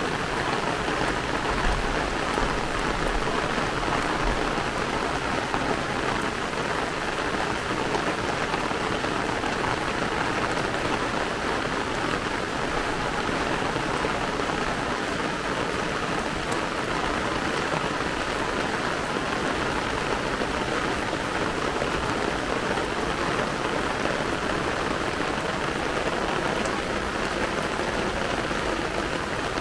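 Heavy rain falling steadily, an even, unbroken hiss of drops.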